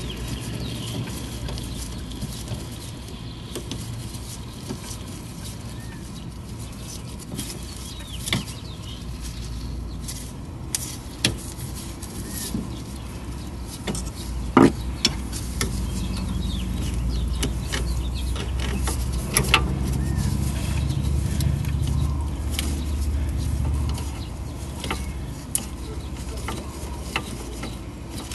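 Scattered clicks and taps of a screwdriver working metal hose clamps on coolant hoses, with a low steady rumble underneath that swells for several seconds past the middle.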